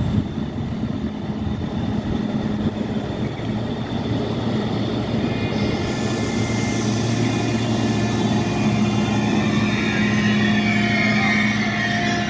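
ICE 3neo (Siemens Velaro) high-speed electric train slowly running into a platform, its running noise growing louder as it nears. Over a steady low hum, whining tones from the electric drive come in and shift in pitch from about ten seconds in.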